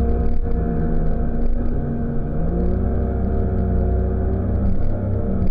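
Outboard motor on a large motorized river raft running steadily, its pitch shifting a little about halfway through, over the rush of fast brown river water.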